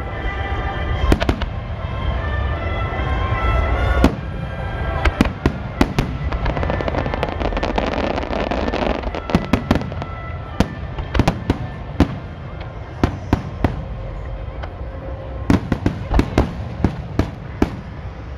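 Fireworks display: aerial shells bursting with sharp bangs, the heaviest about a second in and about four seconds in, followed by scattered pops and a quick run of crackling pops near the end.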